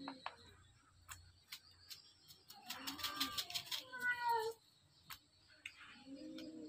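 A cat meowing, one call around the middle and a lower one near the end, with small clicks as raw fish are handled in a basin.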